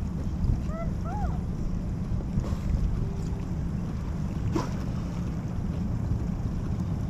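Wind buffeting the microphone over water lapping around an inflatable boat, a steady low rumble. About a second in come two short rising-and-falling calls, and later there are a couple of brief, sharp puffs about two seconds apart.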